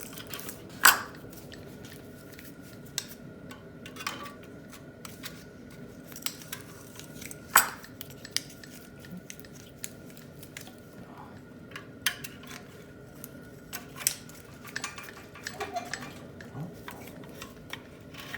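Scattered metallic clicks, clinks and a few sharp knocks from hand tools and engine parts being handled during an engine teardown, over a faint steady high hum.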